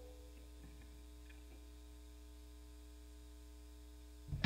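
Faint, steady electrical mains hum in a gap in the music, with the last of a held electronic tone dying away at the start. A brief sound rises just before the end as loud music begins.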